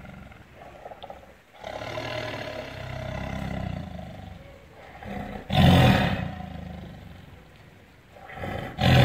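Tiger roaring in its cage. A drawn-out, lower call starts about a second and a half in, then loud roars come about five and a half seconds in and again near the end, each fading away.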